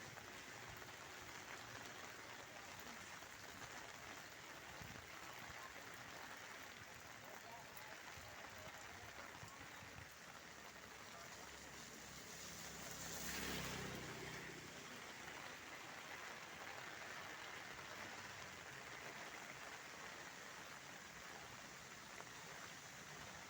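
Steady hiss of heavy rain falling. About halfway through, a passing vehicle swells up and fades away over roughly two seconds.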